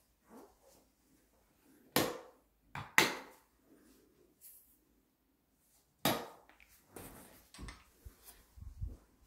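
Three sharp knocks or thumps, about two, three and six seconds in, the second the loudest, followed by a few fainter taps.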